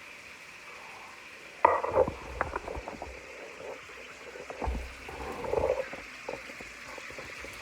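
Food sizzling steadily in a cooking pot. From about two seconds in comes a run of knocks and clatter as the pot and its contents are worked, the first knock the loudest, followed by scattered clicks.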